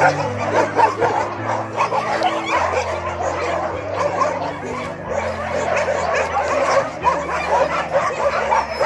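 Many dogs barking and yelping at once, short overlapping barks and yips in a continuous chorus.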